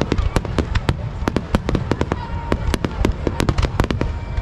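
Aerial firework shells bursting in rapid succession, several sharp bangs a second over a continuous low rumble from the barrage.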